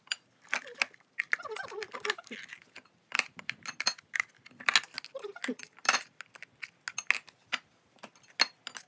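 A metal spoon clinking and tapping against a ceramic bowl and plastic food containers as food is scooped into the bowl. The taps come at irregular intervals.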